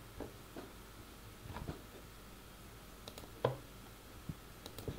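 A handful of faint computer mouse clicks, the strongest about three and a half seconds in, over quiet room tone.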